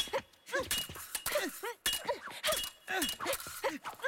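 Fencing blades clashing in a rapid series of metallic strikes, some of them ringing briefly. Short falling cries of effort come between the clashes.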